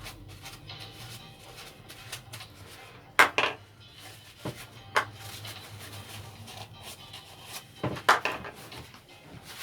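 Clicks and knocks of small engine parts being handled during a workshop service: a pair of sharp knocks about 3 seconds in, single lighter ones a little later, and another pair near 8 seconds.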